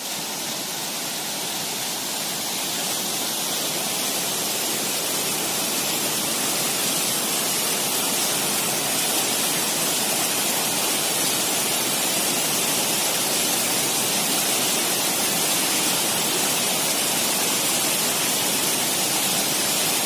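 River water rushing over shallow rock ledges and a weir, a steady rushing noise that swells slightly in the first couple of seconds.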